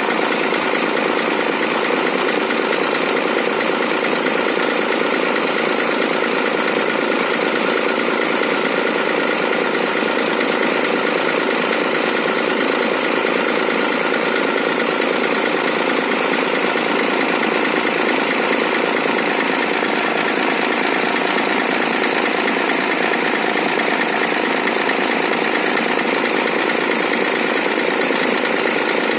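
Hino 500 FM260JD truck's six-cylinder diesel engine idling steadily and noisily at its normal idle speed.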